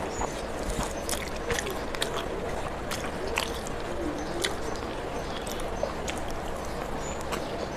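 Close-miked eating sounds: wet chewing and lip-smacking of a mouthful of rice, heard as many sharp irregular clicks, with fingers mixing rice on a steel plate and another handful taken in.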